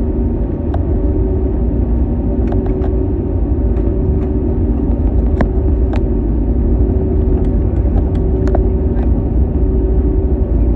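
Inside the cabin of an Airbus A321neo taxiing: its Pratt & Whitney PW1100G geared turbofan engines running at taxi power, a steady rumble with a steady hum over it and a few faint clicks.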